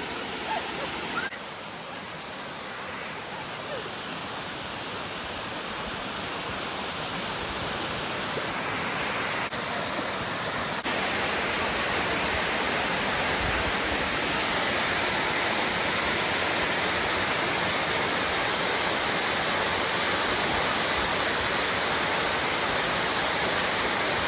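Minnehaha Falls waterfall: water rushing steadily down the rock cascade. It gets gradually louder, then jumps up suddenly a little before halfway and stays there.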